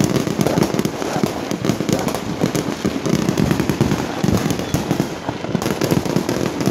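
Many fireworks and firecrackers going off at once in a continuous barrage: overlapping bangs and crackling with no pause.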